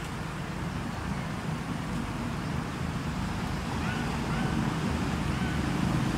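Steady low outdoor rumble, growing slowly louder, with a few faint short chirps about four to five seconds in.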